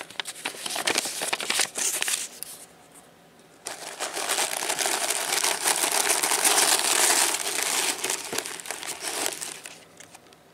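Tissue paper crinkling and rustling as it is handled and unfolded by hand: short rustles over the first couple of seconds, a brief pause, then a longer stretch of steady crinkling.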